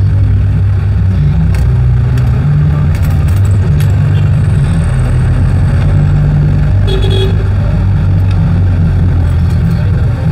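Jeepney's diesel engine running loud and steady, heard from inside the cab, its low drone stepping up and down in pitch as the speed changes; a brief higher beep about seven seconds in.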